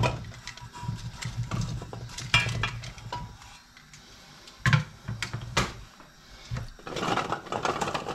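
Chopped potatoes tumbling out of a stainless mesh colander into an enamel pot, with a rattle of knocks and clatters from the colander and pot, and a couple of sharper knocks about five seconds in. A short rush of noise near the end.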